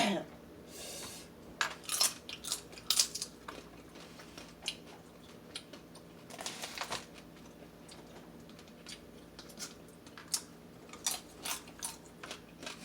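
Eating leftover snow crab and blue crab up close: shells cracking and crunching, with chewing and a scatter of sharp clicks. Two short hissy sounds come about a second in and again past the middle.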